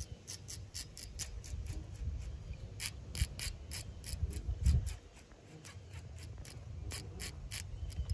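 Baitcasting reel clicking steadily as line is reeled in, about three to four clicks a second, over a low rumble of wind on the microphone.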